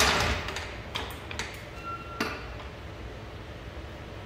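Steel floor jack being pulled away across a concrete floor, its rolling noise dying out in the first half second. Then come a few light clicks and taps and a brief high ping about two seconds in.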